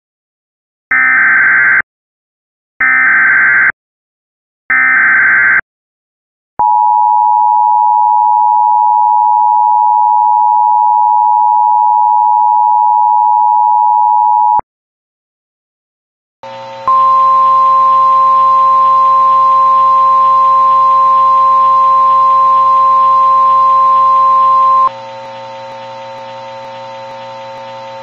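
Emergency Alert System tones: three short screeching bursts of SAME digital header data, then the two-tone attention signal held steady for about eight seconds. After a short pause a buzzing drone starts, with a single steady higher tone over it that cuts off about three-quarters of the way through while the drone goes on more quietly.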